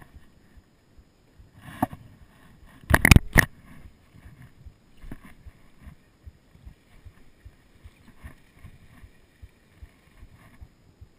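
Handling knocks on a small fishing boat: one light knock a little under two seconds in, then a loud cluster of three or four sharp knocks about three seconds in, among faint ticks and rustles.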